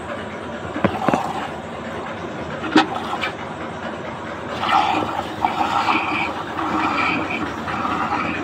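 Thin jets of milk from hand-milking squirting into a steel cup that stands inside a steel bucket. A single sharp knock comes about three seconds in.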